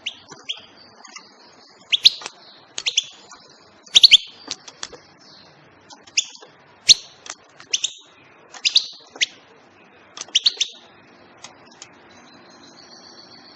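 European goldfinch calling: short, sharp, high chirps, some single and some in quick runs of two to four, with brief pauses between them and a quieter spell near the end.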